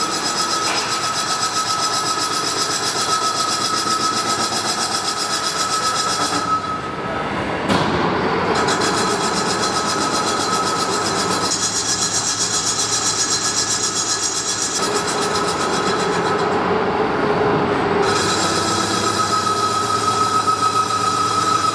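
VTC60 CNC vertical lathe turning the inner bore of a wheel hub: the machine and cutting tool run steadily with coolant spraying on the work. A steady high whine fades out a few seconds in and comes back near the end, with other tones in between.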